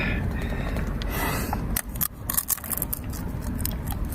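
Wind rumbling on the microphone, then from about two seconds in a run of quick crinkling clicks from a plastic snack packet being handled and opened.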